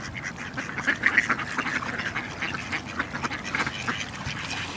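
A flock of ducks quacking, many short calls overlapping without a break, as they crowd in to be fed.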